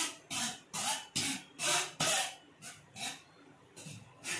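Metal spoon scraping and pressing cooked wood apple pulp through a stainless-steel mesh sieve, in rhythmic strokes about two a second that get fainter near the end.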